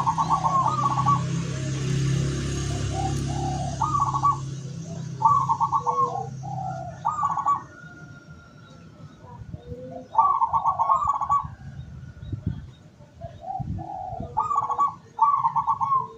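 Zebra dove (perkutut) cooing: repeated rapid trilled coo phrases, several in a row with short gaps between. A low hum runs under the first four and a half seconds and stops, and faint high chirps of small birds sound in the background.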